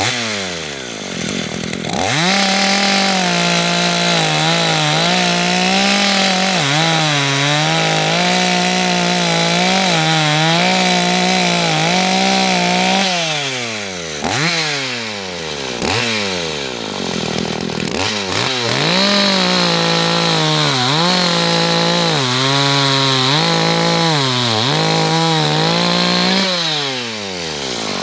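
Two-stroke gas chainsaw cutting a log. It revs up about two seconds in and runs at high revs for some ten seconds, its pitch wavering under load, then drops back toward idle. After two short throttle blips it revs through a second long cut and winds down near the end.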